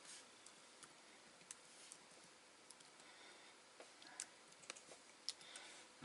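Faint, irregular key clicks from typing on a MacBook Air's built-in keyboard.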